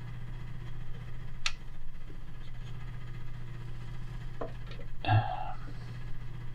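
Faint handling noise of thread being wrapped by hand onto a fishing-rod blank: a sharp click about a second and a half in, small ticks and a brief louder rustle about five seconds in, over a steady low hum.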